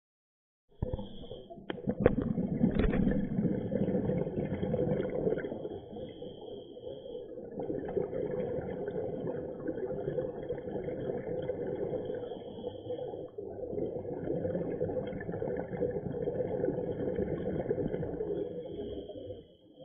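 Muffled underwater noise through an action camera's waterproof housing: a scuba diver's regulator breathing and exhaled bubbles, surging and easing every few seconds. It starts suddenly about a second in.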